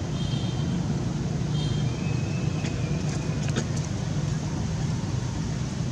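A steady low motor rumble, like a vehicle engine running, with a few short faint high chirps and a couple of light clicks about three and a half seconds in.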